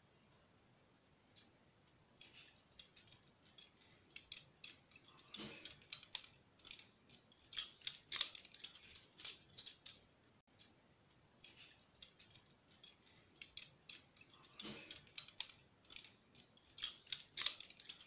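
Balisong (butterfly knife) being flipped by hand: its handles and blade rattle and click against each other in quick, irregular runs, with a short lull midway.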